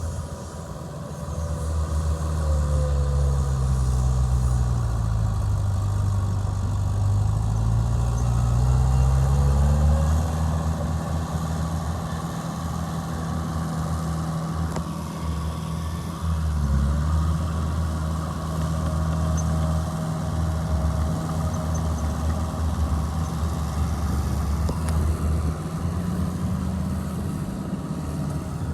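Heavy earthmoving machine's diesel engine running. Its pitch sinks over the first few seconds, bottoms out about six seconds in, climbs back by about ten seconds, then holds steady apart from a brief dip.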